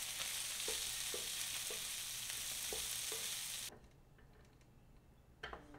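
Minced pork and diced chives stir-frying in a hot pan: a steady loud sizzle with a few light knocks and scrapes of a wooden spatula. The sizzle cuts off suddenly about two-thirds of the way through, leaving quiet with one faint knock near the end.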